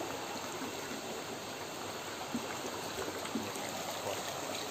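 Forest stream flowing: a steady, even rushing of water with no breaks.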